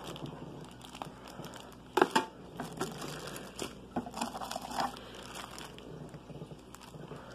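Plastic bags and wrapping crinkling as packed aquarium parts are handled and pulled from a cardboard box, in irregular rustles with the loudest bursts about two seconds in and again around four to five seconds in.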